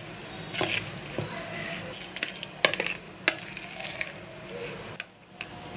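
A metal spoon stirring raw chicken pieces in a thick yogurt and spice marinade in a bowl: a continuous wet scraping, with several sharp clicks of the spoon against the bowl.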